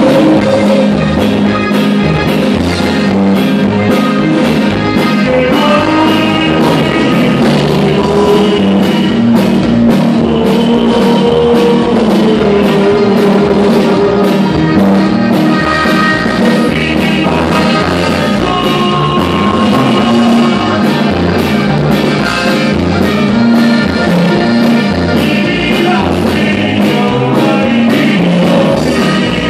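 A live band plays a song with accordion, guitar, congas and drum kit, and male voices sing, loud and steady throughout.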